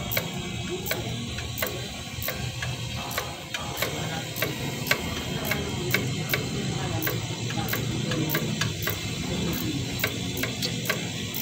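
Ratchet wrench clicking in short, irregular strokes over a steady low hum, as bolts are worked during reassembly of a car's air-conditioning compressor and power-steering pump.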